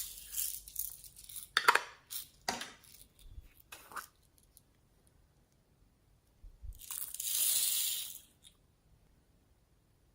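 Glossy slime mixed with floam beads being squeezed and worked by hand, making crackling, crunching sounds with a few sharp clicking pops. After a short pause there is a longer crackling stretch about seven seconds in.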